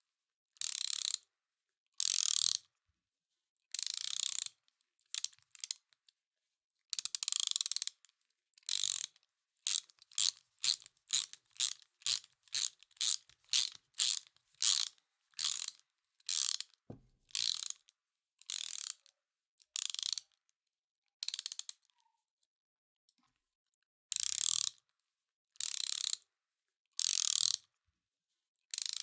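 Hand ratchet wrench clicking in short bursts, one per swing of the handle, about a second apart. The strokes quicken to about two a second in the middle, then stop for about two seconds before starting again.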